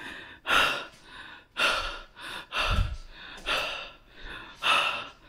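A man breathing hard and fast, loud gasping breaths about one a second: frightened panting after a door slammed shut and trapped him in the room. A dull low thump comes about three seconds in.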